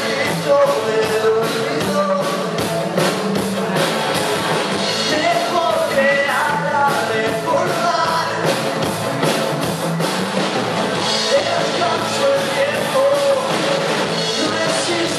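Live rock band playing a song, a man singing lead over acoustic and electric guitars and a steady drum beat.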